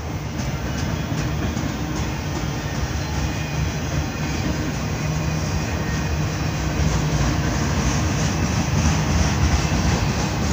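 Norfolk Southern double-stack intermodal freight train rolling past, a steady rumble of steel wheels on rail with faint repeated clicks, growing a little louder in the second half.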